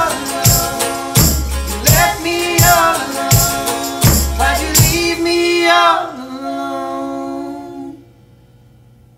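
The closing bars of a live folk song: a woman singing over a guitar and regular drum and cymbal hits. About six seconds in, the song ends on a held note and chord that ring out and fade, leaving faint room hiss.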